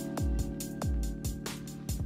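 Background electronic music with a steady kick-drum beat, quick hi-hat-like ticks and held synth chords.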